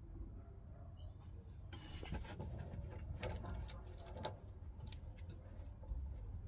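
Small clicks and rattles of a brake hose clamp being handled and closed onto a car's flexible rear brake hose, with one sharper click a little past four seconds in, over a low steady background rumble.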